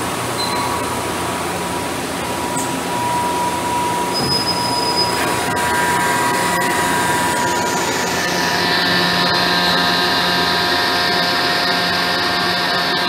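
Steady machine hum of a Hwacheon CNC lathe standing under power, its hydraulic power unit's electric motor and pump running. A set of higher steady whining tones joins about halfway through, with a brighter hiss added a little later.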